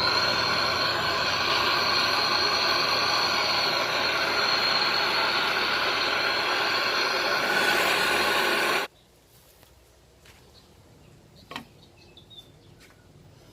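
Loud, steady hiss of gas with a faint high whistle in it, cutting off abruptly about nine seconds in. After that it is much quieter, with a few light clicks and taps.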